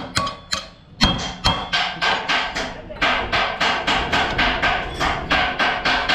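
Hammer striking a bent steel flange on an Audi Q7 front suspension part to straighten it: quick repeated blows, about four a second, with a short pause about a second in.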